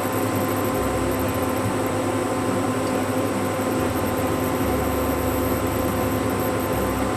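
Steady whir and hum of an electric cooktop's cooling fan as it heats a pan of mustard oil that is not yet sizzling.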